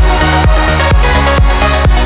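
Background music with a steady kick drum beat, about two beats a second.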